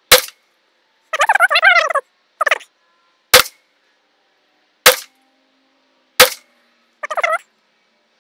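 Four suppressed shots from a PSA Jakl 300 Blackout pistol firing 125-grain supersonic FMJ rounds: one at the start, then three more about three, four and a half, and six seconds in, each a sharp crack with a short tail.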